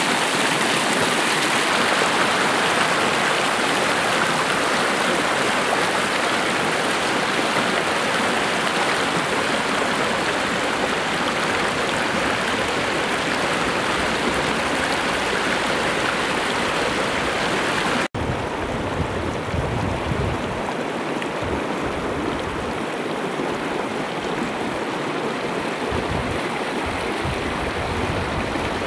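Small mountain stream rushing over rocks, a steady water noise. It breaks off abruptly about two thirds of the way through and carries on a little quieter, with low gusty rumbles mixed in.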